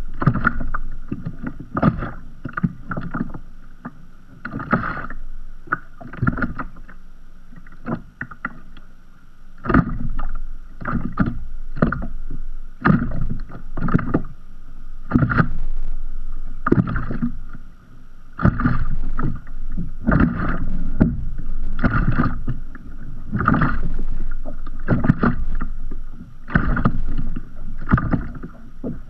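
Sea water lapping against the hull of a kayak drifting at rest: irregular slaps and splashes, several a second.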